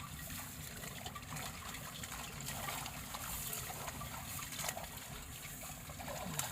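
Water trickling and running steadily through a rain-flooded paddy field, with a couple of short sharp sounds about two-thirds of the way in and near the end.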